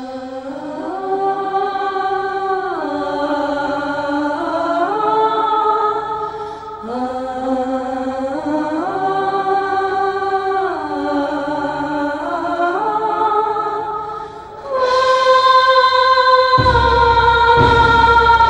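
Soundtrack music: a slow melody of long held notes with singing, in a phrase that repeats. It swells louder about fifteen seconds in, and a low bass comes in near the end.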